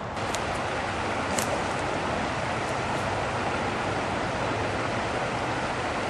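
Shallow river water rushing steadily over rocks in riffles and small rapids.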